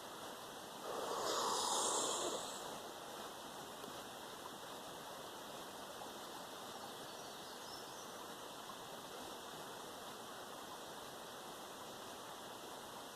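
One long, forceful breath blown out near the microphone, about a second in, over a steady faint background hiss.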